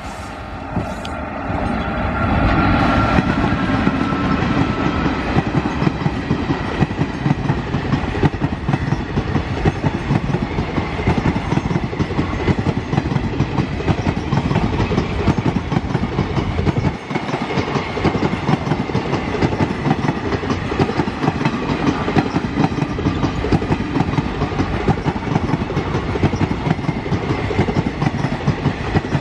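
Express train passing at speed behind a WAP-4 electric locomotive. The sound swells over the first couple of seconds as the locomotive goes by, then turns into a steady, rapid clickety-clack of the ICF coaches' wheels over the rail joints.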